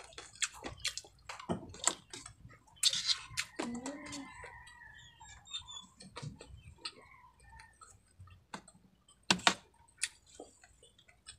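Close-miked chewing of crispy fried baby crabs with rice: irregular crunches and wet mouth clicks, with one sharp louder click a little over nine seconds in.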